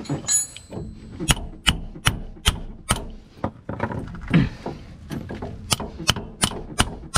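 Hammer tapping a new front differential axle seal into its housing, about two or three sharp strikes a second with a short lull in the middle, driving the seal into place.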